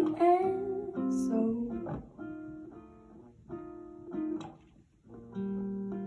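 Guitar playing slow, sparse chords that close a jazz ballad, each struck and left to ring. After a brief pause, a last chord rings on near the end.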